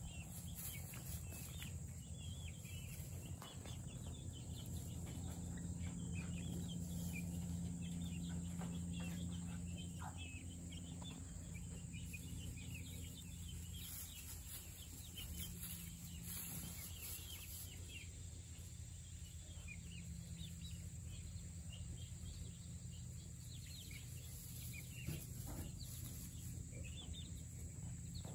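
Young chickens giving many short, soft peeps and clucks over a steady low hum.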